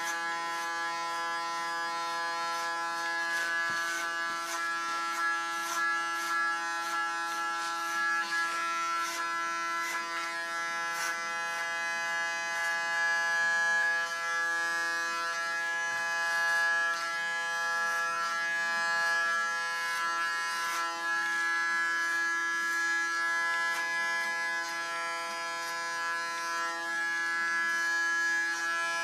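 Electric hair clipper running with a steady buzz while cutting very short hair. Scattered short clicks come through, most of them in the first half.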